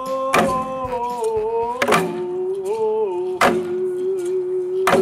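Instrumental music: held chords that shift slowly in pitch, punctuated by a sharp hit about every second and a half.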